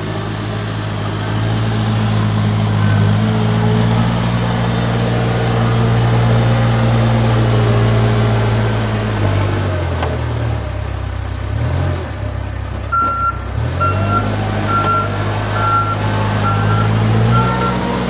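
Backhoe loader's diesel engine working under load; its pitch drops in the middle, then picks up again. From about two-thirds of the way in, a reversing alarm beeps steadily, about one and a half beeps a second, as the machine backs up.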